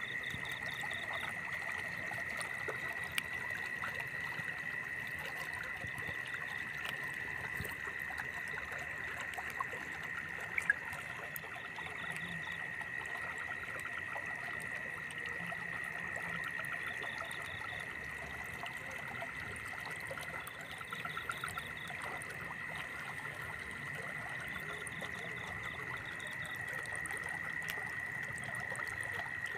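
Water trickling in a muddy field ditch under a steady, high-pitched drone of night insects, with short pulsed calls every several seconds and a couple of faint clicks about ten seconds in.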